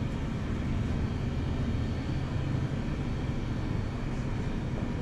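Steady low rumble of supermarket background noise, with no distinct events standing out.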